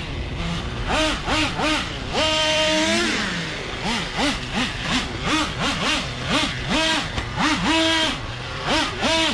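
Traxxas Revo 3.3's two-stroke nitro engine revving up and down in quick throttle blips, about two a second. About two seconds in it holds one longer high rev, which falls away near three seconds.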